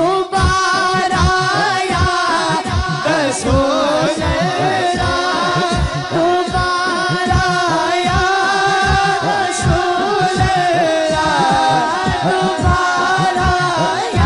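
A boy singing a naat, an Urdu devotional song, into a microphone, his melodic voice gliding between long held notes. Under the voice run a steady held note and a regular low beat.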